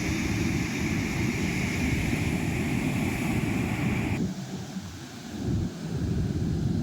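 Strong wind buffeting the microphone over rough surf, a dense rumbling roar of wind and breaking water. A higher hiss cuts off suddenly about four seconds in, leaving the low wind rumble.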